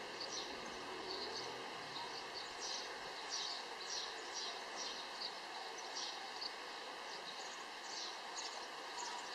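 Small birds chirping: short high chirps coming a couple of times a second at irregular spacing, over a steady background hiss with a few faint steady tones.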